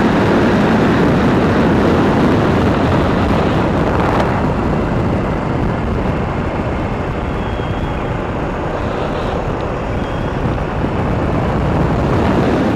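Wind rushing over the microphone of a camera held out from a moving motorcycle, over the running of single-cylinder motorcycle engines at road speed. A dense, steady noise that eases a little about four seconds in.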